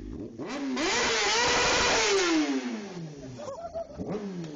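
Kawasaki Ninja 636's inline-four engine revved hard during a burnout in snow. The revs climb about half a second in and hold high for about two seconds under a loud hiss of the rear tyre spinning in the snow, then fall away, with a couple of short blips near the end.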